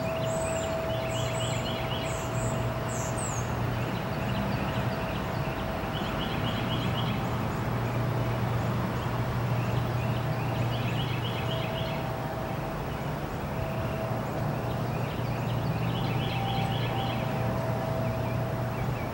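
Outdoor park ambience: a steady low rumble of distant traffic under songbirds, one repeating a short rapid trill about every five seconds, four times, with high chirps in the first three seconds. A faint steady whine runs underneath.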